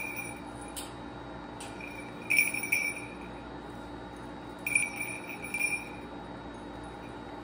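Juvenile red-tailed hawk giving short, high, thin calls in small clusters: one at the start, several about two seconds in, and more around five seconds, with a few light clicks among them.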